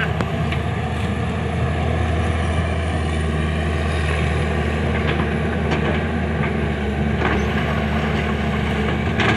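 Heavy diesel engine of the sand-loading machinery running steadily, with a few faint knocks scattered through.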